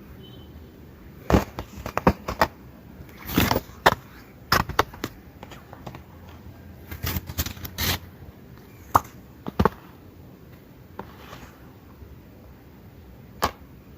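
Handling noise from an album unboxing: irregular sharp clicks, taps and brief rustles as the packaging and its contents are handled, busiest in the first ten seconds, with one more click near the end.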